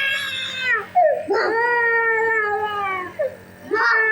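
A small child crying in three long, drawn-out wails with short gasps between them. Underneath runs the steady low buzz of a nebuliser's compressor.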